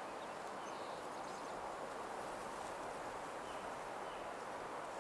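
Soft nature soundscape: a steady, gentle rustling hiss with a few faint, sparse bird chirps over it.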